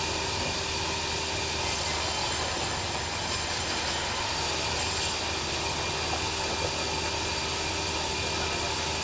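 Sawmill band saw running steadily with a constant machine hum and hiss; a brighter high hiss joins for a couple of seconds about a second and a half in.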